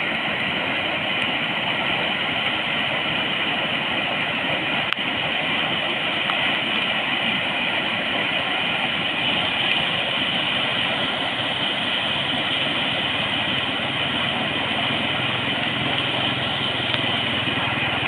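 Water rushing steadily over a flooded overflow weir, a continuous even roar with no change through the stretch.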